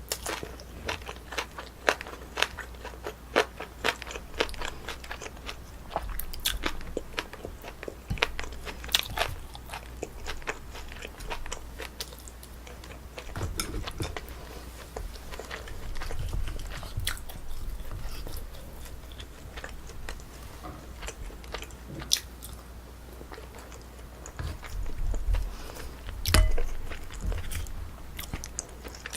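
Close-miked eating: biting and chewing with frequent crunches and clicks, and a few dull low knocks near the end.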